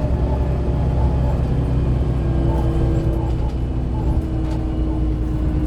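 Dennis Dominator double-decker bus's diesel engine running steadily, with a whine coming in about two seconds in.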